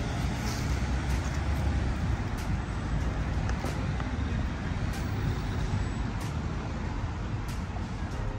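A car driving on the road: a steady low rumble of engine and tyre noise, with a few faint light knocks.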